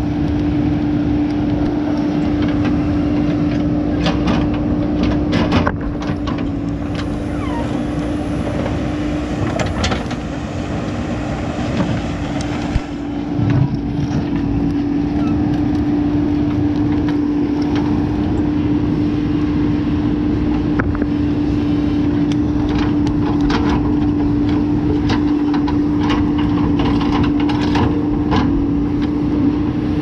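JCB backhoe loader's diesel engine running steadily under load with a constant drone. Scattered knocks and clatter come from the bucket digging through soil and stones.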